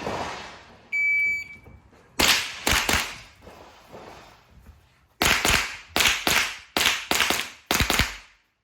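A shot timer beeps once, about a second in, then a .22 rimfire rifle fires in quick strings: several shots in close succession, a short pause, then a longer rapid string of shots in the second half.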